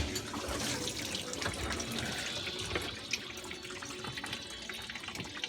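A clunk as a GE dishwasher's door is opened mid-cycle, then water running and splashing inside the tub, scattered with small ticks and drips.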